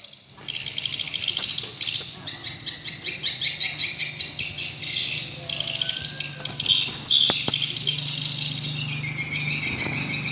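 Swiftlets twittering: a dense, continuous mass of rapid high chirps that starts about half a second in and grows louder after a few seconds.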